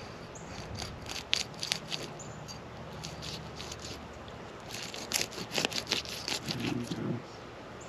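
Fillet knife cutting into a mangrove snapper behind the gill plate: a run of small crackling clicks and scrapes as the blade saws through scales and bone, in two spells with a pause between.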